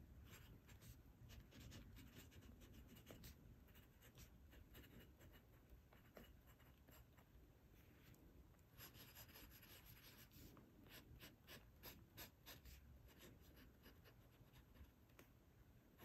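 Glass dip pen nib scratching faintly over notebook paper as a word, loops and short lines are written in ink, in a string of small irregular scratches.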